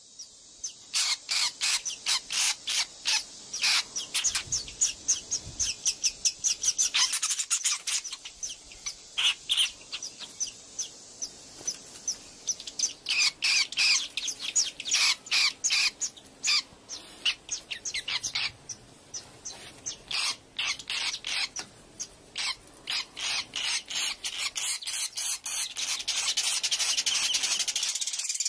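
Swiftlets chirping: a long run of sharp, high chirps, several a second, coming in clusters with short gaps. In the last couple of seconds a steady high hiss swells in under them.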